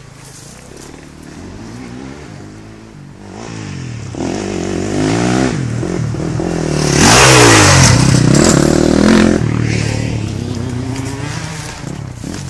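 Motocross bike's engine revving up and down through the gears as it comes closer, loudest a little past halfway, then fading as it moves off.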